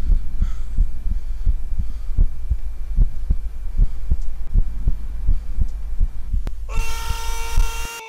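A rapid flurry of dull thumps, about four a second, over a steady low rumble. Near the end a man lets out one long, high, held scream.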